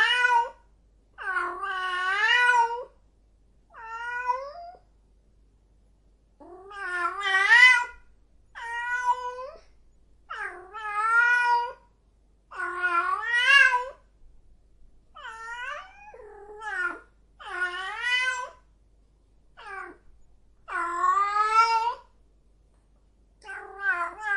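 Female cat in heat calling: about a dozen drawn-out, wavering yowls of a second or so each, separated by short pauses.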